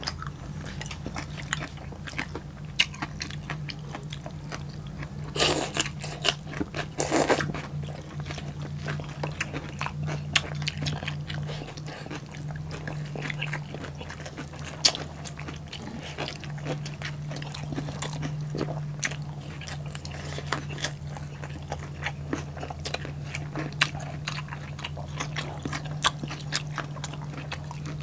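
Close-miked mukbang eating: biting, chewing and crunching of crispy pork belly and vegetables, with many small crackles and mouth sounds and a burst of louder crunching about five to seven seconds in. A steady low hum runs underneath.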